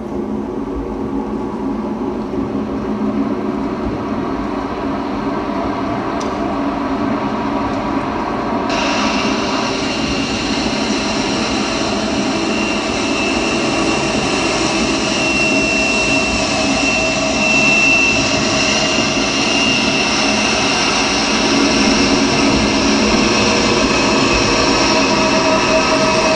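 A loud, dense mechanical-sounding drone that cuts in suddenly and slowly builds; about nine seconds in it abruptly turns brighter and hissier, and a high held whine rides on top in the middle stretch.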